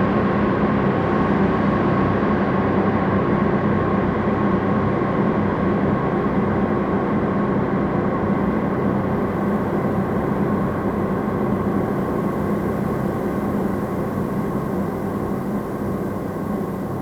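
Noise music: a dense, steady wall of droning noise with sustained tones layered in it, slowly growing quieter.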